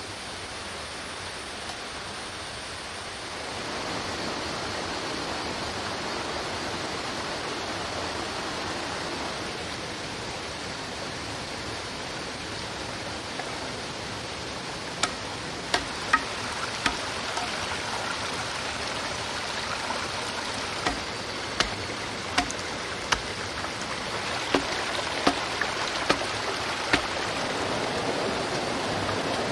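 Shallow rocky stream running steadily, louder after a few seconds. From about halfway through come about a dozen sharp knocks in small runs, roughly one a second: a knife striking a green bamboo tube against a rock.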